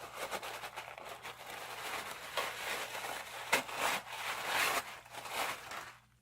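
Packaging crinkling and rustling in irregular handfuls as a pair of shoes is unwrapped and pulled out of a shipping box. It stops just before the end.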